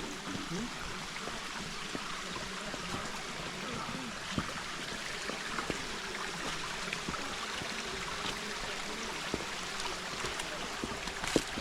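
Steady rush of a flowing forest stream, with faint low voices under it.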